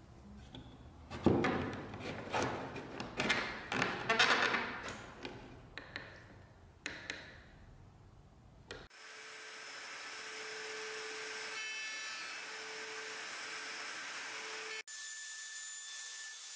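Ash wood pieces knocking and scraping together as a leg is worked into a mortise in a rail: a flurry of sharp wooden knocks over the first few seconds. After that a steady whirring machine sound, which changes character near the end as a router table runs.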